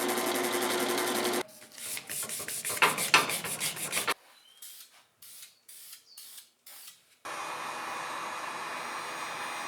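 A run of workshop sounds from refinishing a metal telegraph-key base. A small electric motor runs steadily and stops about a second and a half in. Rhythmic rubbing strokes of hand sanding follow. Then come a string of short hissing bursts like a spray can, and from about seven seconds a steady motor again.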